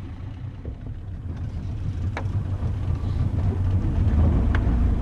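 Fishing boat's motor running at low speed, a steady low rumble that grows louder toward the end, with two faint clicks.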